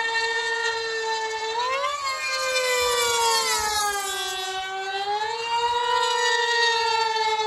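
High-revving 0.4 cu in two-stroke glow engine of an F3T pylon racer screaming at full throttle, a high-pitched whine. Its pitch jumps up about two seconds in, sinks over the next two seconds and climbs again around five seconds, as the plane passes and rounds the pylon course.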